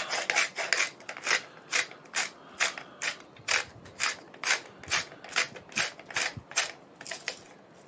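Salt grinder being twisted, giving a steady run of short ratcheting, crunching grinds, about two to three a second, that stop near the end.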